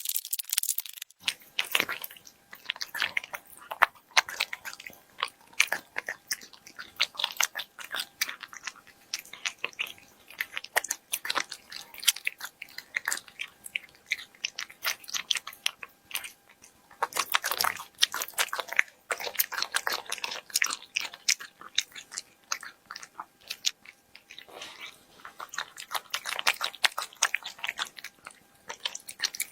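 A cat eating from close up: rapid crunching and chewing in clusters, with short pauses between mouthfuls.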